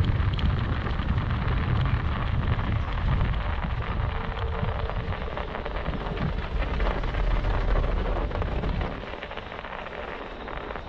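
Wind rumbling on the microphone over a steady rough hiss as a Xiaomi M365 Pro 2 electric scooter ploughs through dry powder snow. The low rumble drops away about nine seconds in.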